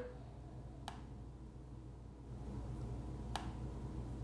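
Two faint, sharp computer mouse clicks, about two and a half seconds apart, over a low steady hum.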